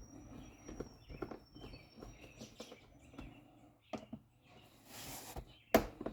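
Scattered light clicks and knocks of hands working on a car's plastic air box and its cover screws, with a short hiss about five seconds in and a sharp, loud click just before the end.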